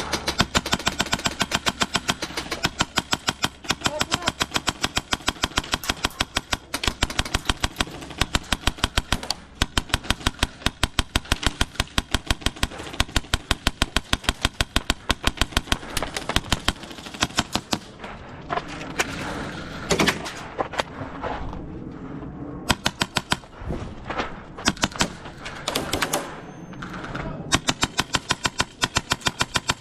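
Airsoft guns firing in long runs of rapid shots, several a second, during a close-quarters game. The firing turns into shorter bursts with pauses over the last third.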